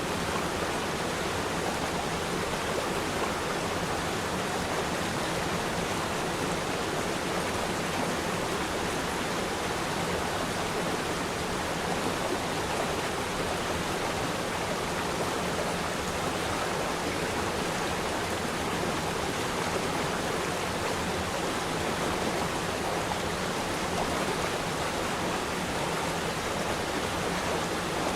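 Waterfall: water falling and rushing in a steady, even roar of white noise.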